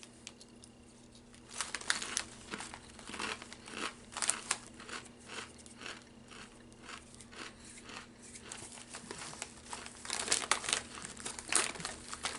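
Potato chip bag crinkling as it is handled, and crisp crackles of a potato chip being bitten and chewed: a long run of short, sharp crunches, some in an even chewing rhythm.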